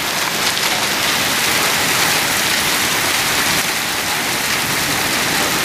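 Torrential rain pouring down hard, a steady dense hiss, with hail falling in it.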